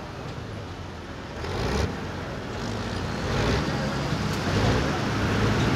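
Hot farm pulling tractor's diesel engine running, growing louder from about halfway through.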